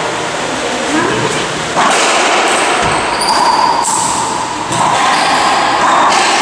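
Racquetball rally in a walled court: several sharp smacks of the ball off racquets, walls and the wooden floor, echoing in the court, over a steady noisy background.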